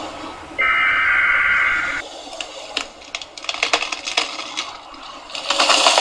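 Layered sound-effects sequence: a steady buzzy tone for about a second and a half, then a run of sharp crackles and snaps, then a loud rush of noise near the end.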